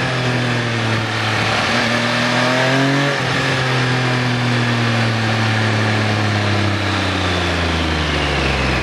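Triumph Sprint ST 955's inline-triple engine heard from onboard under way, with wind rush. The revs climb for about three seconds, drop sharply, then fall slowly as the bike slows.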